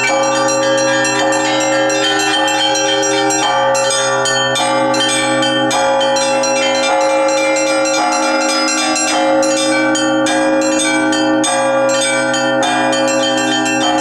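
Russian Orthodox church bells rung by hand from clapper ropes: small high bells struck in rapid, repeating patterns over the sustained ringing of larger bells.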